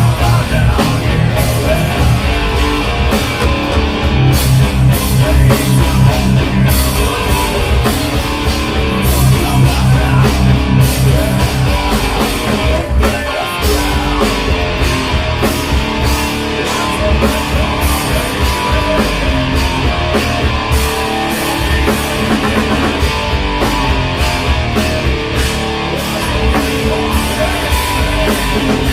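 Live rock band playing a song: electric guitar and drum kit.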